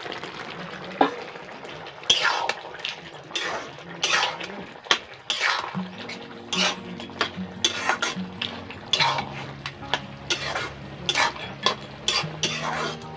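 A long metal spoon stirring in a large aluminium kadai of crab and pumpkin, with repeated scrapes and clinks against the pot. About halfway through, background music with held notes comes in under the stirring.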